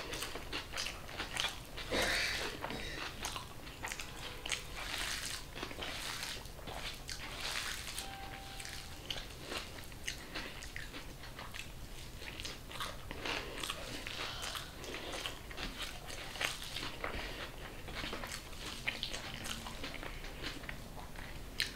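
A person eating rice by hand from a metal plate: chewing with crunchy bites, and fingers mashing and mixing rice, heard as a steady run of small clicks and crackles.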